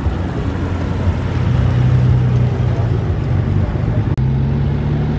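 BMW car engines and exhausts running as the cars drive past, a steady low drone. The engine note changes abruptly about four seconds in as a different car is heard.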